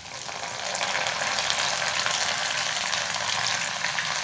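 Hot oil in an iron kadhai sizzling and crackling as a strainer of soaked moong dal deep-fries in it. The sizzle builds over the first second, then stays steady and loud, with many fine crackles.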